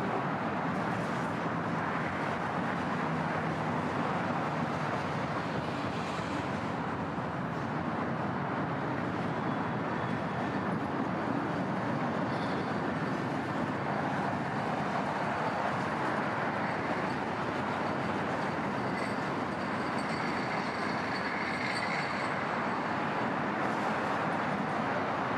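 Freight train of boxcars rolling past: a steady noise of steel wheels on the rails, with a few faint high squeals partway through.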